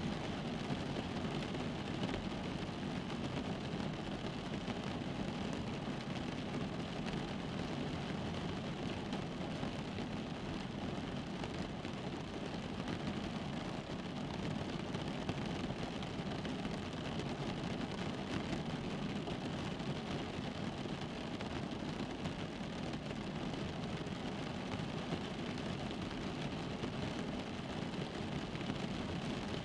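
Rain falling on a car's roof and windows, heard from inside the cabin: a steady, dense patter of drops over a muffled low rumble.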